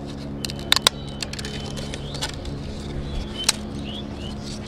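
Crisp fried potato papads crackling and snapping as they are handled and broken by hand: a handful of sharp, separate cracks over a steady low hum.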